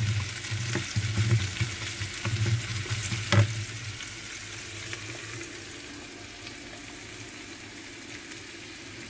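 Sliced onion and garlic sizzling in olive oil in a frying pan, stirred with a wooden spoon that scrapes and knocks against the pan for the first few seconds, with one sharp knock about three and a half seconds in; then a steady sizzle. The onions are frying on their way to golden brown.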